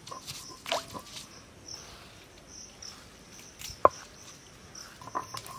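Insects chirping in a steady, high, evenly repeating pulse, with a few sharp clicks and knocks; the loudest knock comes about four seconds in.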